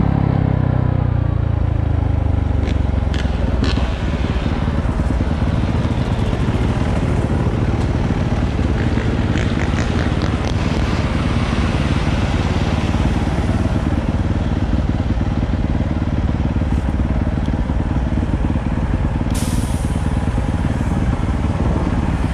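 Motorcycle being ridden, its engine running under way with heavy wind rush on the microphone. The engine note falls in the first second or so as it slows, and there are a few light clicks along the way.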